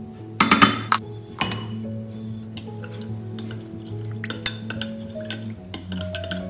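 A metal spoon clinking against a glass measuring jug while stirring cornstarch into liquid, with two louder ringing clinks in the first second and a half and quick small clinks after that. Background music plays throughout.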